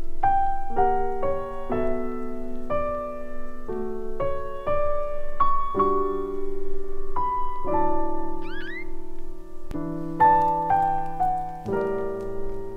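Background music: a solo piano playing a gentle melody of single notes, about two a second, each ringing on under the next.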